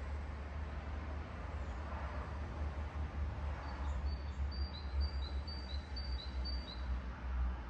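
A songbird calling a quick run of short, high chirps from about four seconds in, alternating between two notes about five times over, above a steady low rumble.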